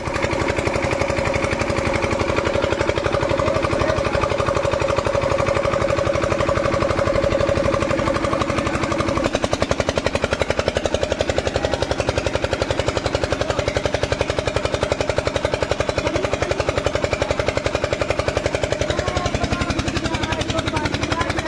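Single-cylinder diesel engine of a portable generator set running steadily with a fast, even chugging beat, powering a submersible borewell pump.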